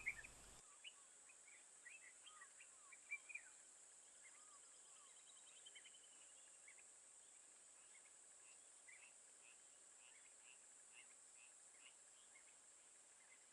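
Faint bush ambience: many short bird chirps and calls scattered throughout, over a steady high-pitched hiss.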